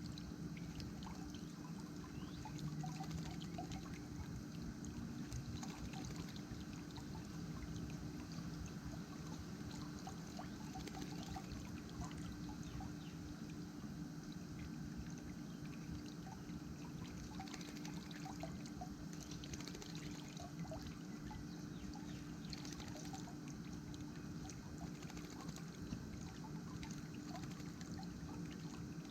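Water splashing and trickling in a bird bath as a robin bathes, with scattered small splashes over a steady low hum.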